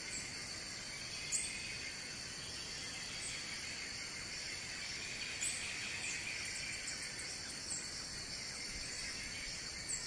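Rainforest ambience: a steady, high insect chorus, with a few brief, faint high chirps from birds.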